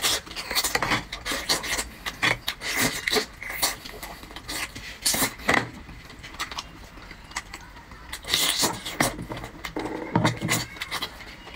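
Close-up eating sounds of a person biting and chewing scallop meat off the half shell: irregular clicks and smacks, busiest in a few short clusters.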